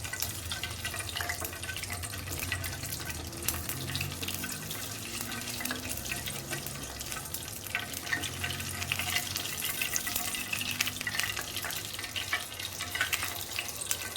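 Old candle wax melting in a bowl over a low stove flame while being stirred: a steady hiss with many small crackles and scrapes.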